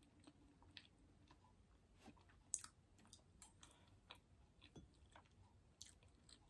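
Very faint chewing and wet mouth clicks of a person eating, with a few scattered sharp clicks, the loudest about two and a half seconds in.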